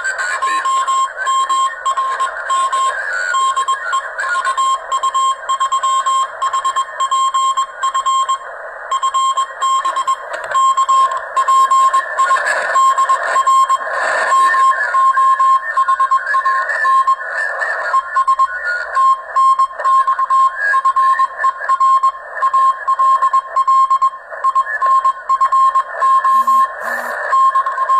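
Morse code (CW) heard on a ham radio: a single tone of about 1 kHz keyed on and off in dots and dashes, over the steady hiss of the receiver.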